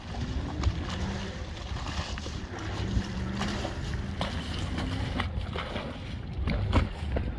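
Wind buffeting the microphone and small waves slapping, over the faint low hum of a Hurricane 187 deck boat's engine idling as it comes in slowly.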